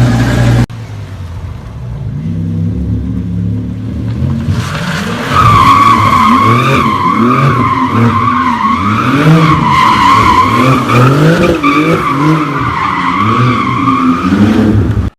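A sports car drifting: its engine revs up and down while the tyres squeal in a long, wavering screech that starts about four and a half seconds in. A different loud engine sound breaks off abruptly just under a second in, and everything cuts off suddenly at the end.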